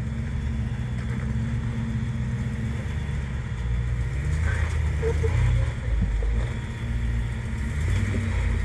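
Lifted Ford Explorer rock crawler's V8 engine running at low revs as the truck crawls over rocks, the engine note swelling as throttle is added about halfway through and again near the end.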